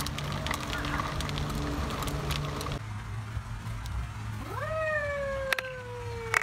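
A dog howling: one long call that rises quickly and then slowly falls in pitch, starting about two-thirds of the way in. Before it, a low rumble with scattered light clicks.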